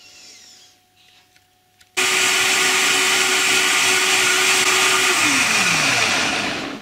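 Vitamix blender motor starting suddenly about two seconds in and running at full speed with a steady whine, blending whole tomatoes, garlic and leaves into a purée. Near the end its pitch falls as the blade slows and the sound dies away.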